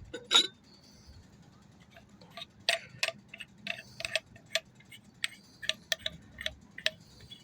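Light metallic clicks and clinks from the parts of a multi-tool survival axe being handled and taken apart, about one to two a second from about two seconds in.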